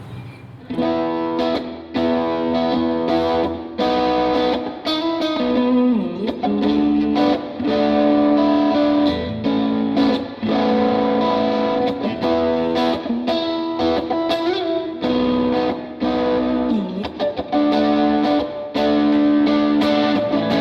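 Mexican-made Fender Stratocaster with ceramic pickups played through a Line 6 Helix amp model of a Vox AC30 with overdrive on: rhythmic strummed chords with light crunch, with pitch bends about six seconds in and near the end.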